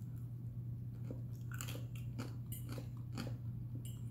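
A person chewing crunchy fried batter crumbs with the mouth close to the microphone: a string of crisp crunches, over a steady low hum.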